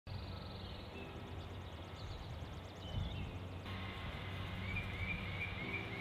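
Low steady background rumble with a few faint songbird chirps, then a quick run of short chirps near the end.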